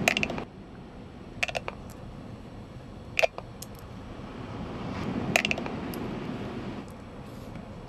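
Steady rushing wash of sea surf that swells and eases over a few seconds, with about five short, sharp clinks that ring briefly, spaced a second or two apart. The clinks are the loudest sounds.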